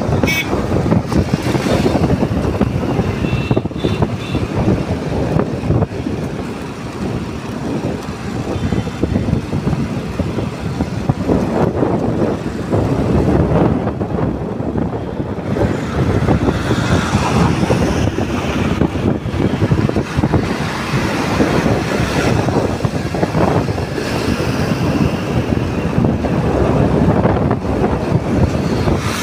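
Wind rushing and buffeting over the microphone of a moving motorcycle, mixed with its engine and road noise as it cruises steadily.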